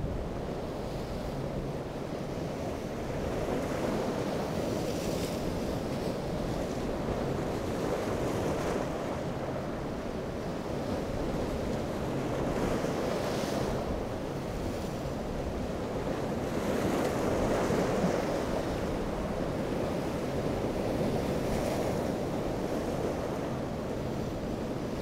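Waves breaking and washing, swelling every few seconds, with wind buffeting the microphone; a boat's outboard engines hum faintly underneath.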